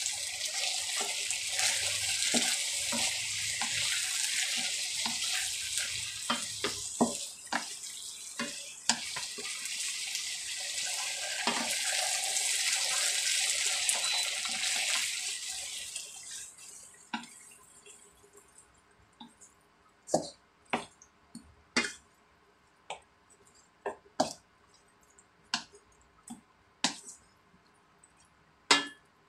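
Chicken feet in sauce sizzling in a wok, with a wooden spatula stirring and knocking against the pan. Past the halfway mark the sizzle dies away, leaving single sharp knocks of the spatula on the pan about once a second.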